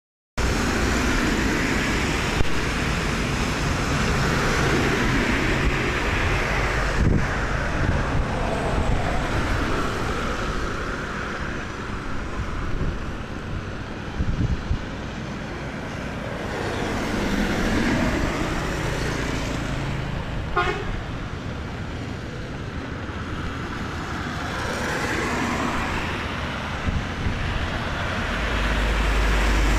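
Road traffic on a wet highway: trucks, a bus and vans passing one after another, their tyres hissing on the wet pavement, the noise swelling as each goes by. A short horn toot sounds about two-thirds of the way through.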